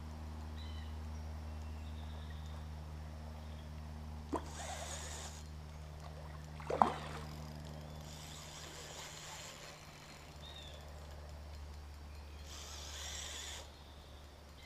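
Electric power-assist fishing reel winding in short bursts while a hooked carp is played, over a steady low hum. About seven seconds in there is a sharp splash as the fish breaks the surface.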